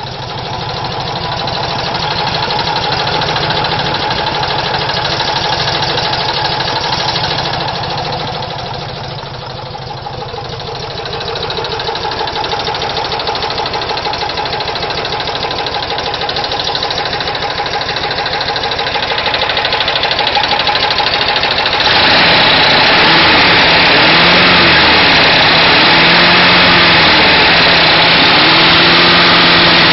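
VW Type 4 air-cooled flat-four engine running with a knock. About two-thirds of the way through it gets louder and rougher, and its speed rises and falls a few times.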